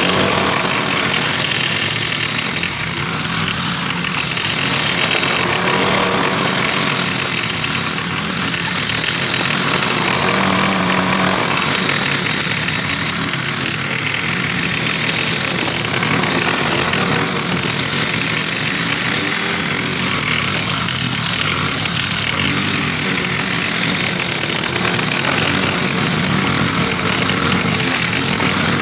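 Gasoline lawn mower engine running steadily while mowing a lawn, its sound swelling and easing slightly every few seconds.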